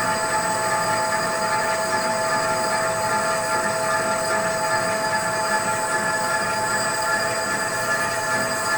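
CNC lathe boring the inside of a long tube with an extended, built-up boring bar: a steady metallic squealing whine made of several fixed high tones over continuous cutting noise.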